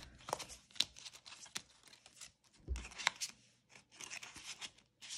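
Cash bills and budget envelopes being handled: rustling and light taps in short, scattered bursts.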